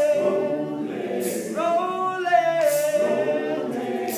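Male a cappella group singing in harmony without instruments, several voices holding long chords.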